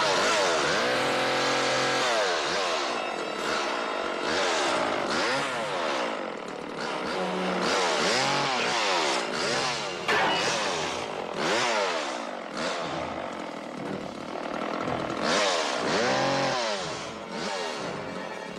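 Gasoline chainsaw running and revved up and down over and over, its pitch swinging up and falling back in quick arcs.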